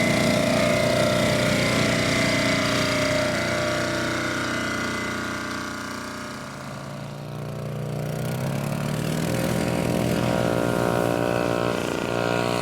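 Engine running, fading and dropping in pitch about halfway through, then picking up in pitch and level again.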